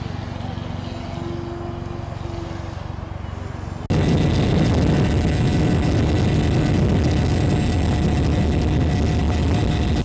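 Radio-controlled model airplane's motor and propeller running in flight, a steady drone that jumps suddenly louder and harsher about four seconds in.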